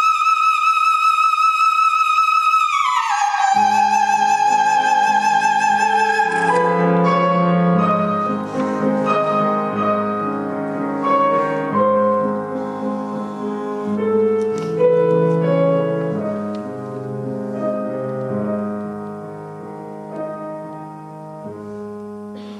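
An operatic soprano holds a high note with vibrato, slides down to a lower held note and stops about six seconds in, while a grand piano comes in under her. The piano then plays the closing passage alone, growing gradually quieter toward the end.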